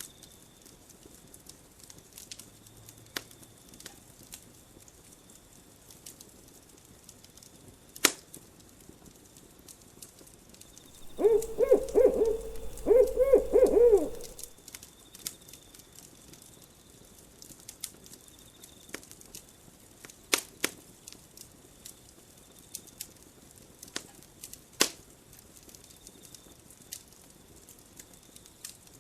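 Campfire crackling with scattered sharp pops, and about eleven seconds in an owl hooting, two wavering calls in quick succession that are the loudest sound.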